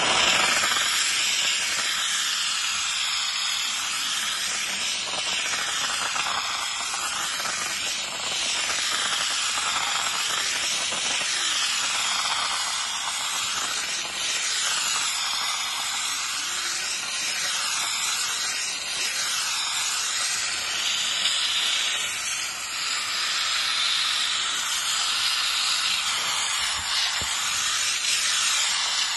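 Handheld domestic steam cleaner jetting steam through a cloth-wrapped nozzle onto soapy canvas: a steady hiss whose tone shifts slightly as the nozzle is wiped across the fabric.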